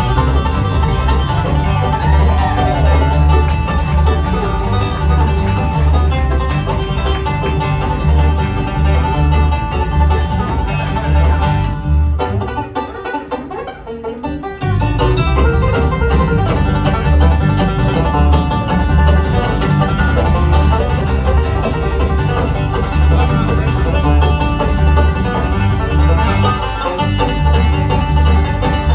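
Bluegrass band playing live: two banjos picking over acoustic guitar and upright bass, in a banjo tune built around chimes (bell-like harmonics). About twelve seconds in the bass drops out for a couple of seconds, leaving thinner picking, then the full band comes back in.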